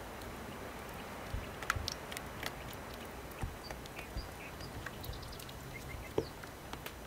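Red silicone spatula folding cream into cream cheese in a glass bowl, with soft wet squishes and scattered light clicks against the glass over a steady low hiss. A few short high squeaks come in the middle.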